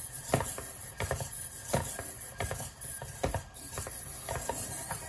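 Tomy i-SOBOT toy humanoid robot walking sideways, its steps making a series of short taps and clicks, roughly one every half second to a second.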